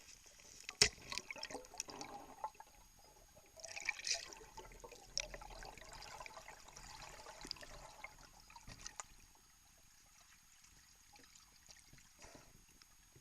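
Underwater sound picked up through a camera housing: water swishing and bubbling with scattered clicks and knocks, one sharp knock about a second in, then much quieter for the last few seconds.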